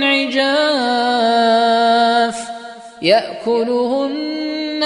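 A man reciting the Quran in a melodic, chanted tajwid style. He holds one long drawn-out note, drops off briefly about three seconds in, then starts the next phrase with a rising glide.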